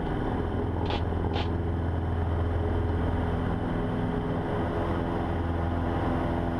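Cessna 150's Continental O-200 four-cylinder engine running steadily at full takeoff power, heard from inside the cabin during the takeoff roll and lift-off. Two brief high chirps come about a second in.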